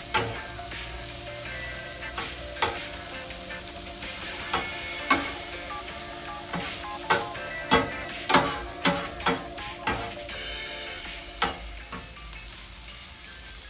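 Metal spatula clanking and scraping on the steel top of a Blackstone griddle as chicken, peppers and cheese are chopped and turned, over a steady sizzle of frying food. The strikes come at irregular moments and run quickest about seven to ten seconds in.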